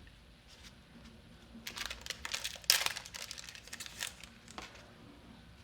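Foil trading-card booster-pack wrapper being torn open and crinkled: a cluster of crackling rustles from about two seconds in, lasting a couple of seconds, then quieter handling.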